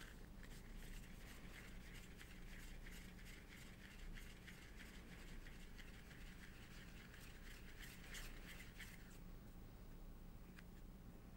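Hands kneading and rolling a small piece of taro and glutinous-rice dough between the palms: a faint rustling with small crackles that stops about nine seconds in.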